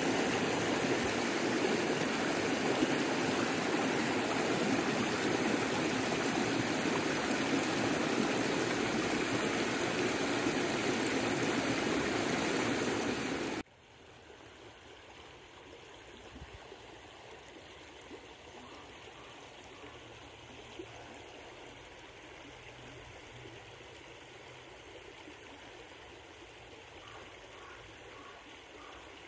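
Mountain trout stream running over rocks: a steady, loud rush of water up close. About halfway through it cuts suddenly to a quieter, more distant flow.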